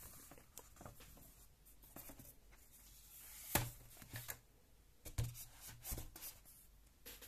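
Hardcover picture book being handled and closed: faint rubbing and rustling of pages and cover, with a few soft knocks of the hard cover, the loudest about three and a half seconds in and two more near five and six seconds in.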